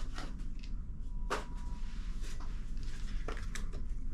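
A few light clicks and faint rustling as a sheet of paper is handled during a cutting test with a small fixed-blade neck knife's serrated edge.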